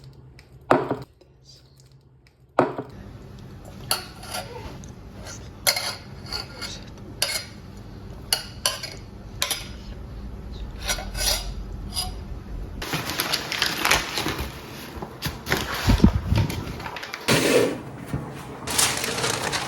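Kitchen clatter: dishes and utensils knocking and clinking in a string of separate sharp strikes. A steady hiss comes in about two-thirds of the way through, with a few dull thuds, and returns near the end.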